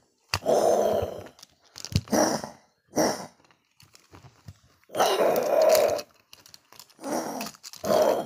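A person's voice imitating big cats fighting: about six short, rough growls and roars, the longest about five seconds in. There are a couple of sharp knocks near the start.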